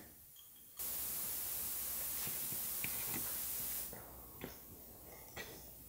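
A steady hiss for about three seconds that starts and stops abruptly, followed by a few faint clicks of small clamps being set along a rubber-and-felt beltline weatherstrip.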